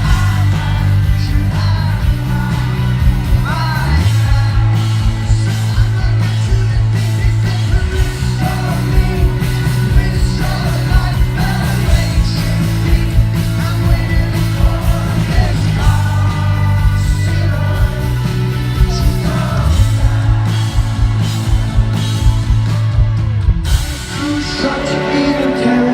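Rock band playing live: a male lead singer over drums, bass and guitars. Near the end the bass and drums drop back briefly while the singing carries on.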